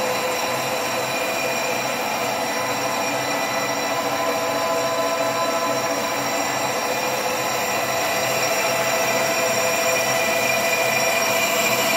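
SNB 400 metal lathe running steadily with a constant whine, turning a warped Golf 4 brake disc to skim its braking surface true.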